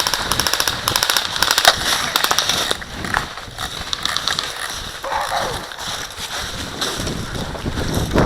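Airsoft gun firing rapid automatic bursts, a fast string of sharp high clicks for the first two and a half seconds, then stopping.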